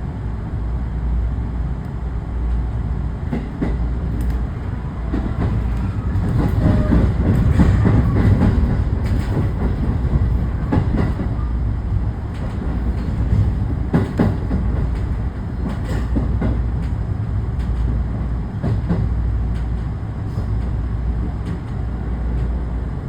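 Electric commuter train on the rails: a steady low rumble with scattered clacks of wheels over rail joints, heaviest about a quarter to halfway through.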